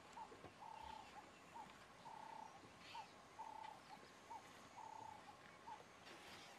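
Faint bird calls: one bird repeats a short note followed by a longer even note, about five times. Fainter high chirps from other birds come now and then.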